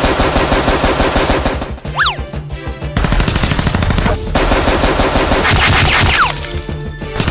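Dubbed machine-gun fire sound effects: rapid, continuous shots over background music, with a quick falling whistle about two seconds in and again about six seconds in.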